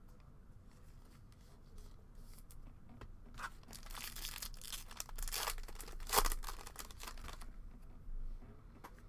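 A trading card pack being torn open and its wrapper crinkled: a few seconds of ripping and rustling, with the sharpest tear about six seconds in.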